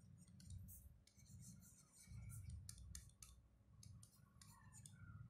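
Near silence with faint, crisp taps and scratches scattered throughout, from handwriting on a touchscreen, over a low rumble.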